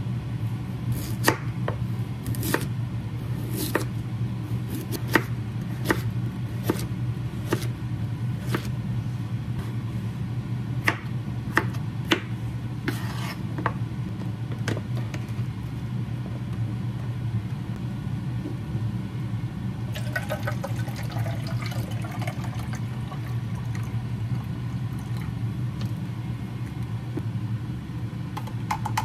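Kitchen knife chopping through daikon radish and cucumber on a wooden cutting board, one sharp chop about every second in the first half, with a looser patch of lighter knocks later on. A steady low hum sits underneath.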